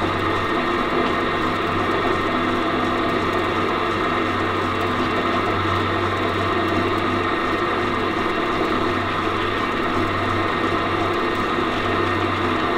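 Pillar drill running steadily, spinning a cork-tipped dowel pressed onto an aluminium panel with valve grinding paste to engine-turn swirl patterns into it.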